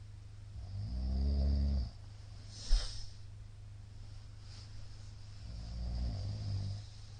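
A middle-aged man snoring in his sleep: two long, low snores about four seconds apart, each lasting over a second. Between them comes a brief sharp sound, the loudest moment.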